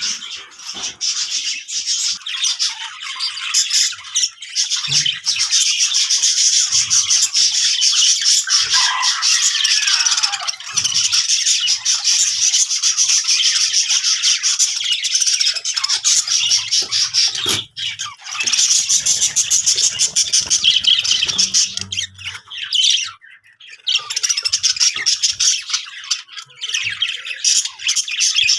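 Budgerigars chattering: a dense, unbroken stream of rapid high chirps, with a brief lull about four-fifths of the way through.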